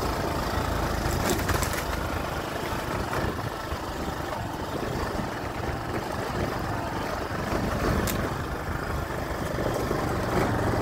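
Minsk X250 enduro motorcycle engine running steadily.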